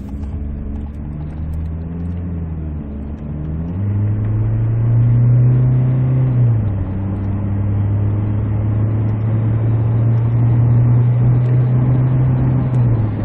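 2012 SsangYong Korando Sports diesel engine heard from inside the cab while driving. About four seconds in the engine note jumps up and gets louder as it accelerates and climbs a little. It drops in pitch at an upshift about six and a half seconds in, then runs steady, and drops again near the end.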